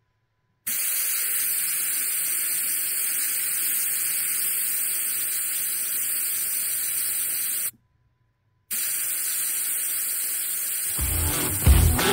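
Air hissing steadily out of a Jeep Wrangler tire through its valve stem as the tire is let down, breaking off twice for about a second.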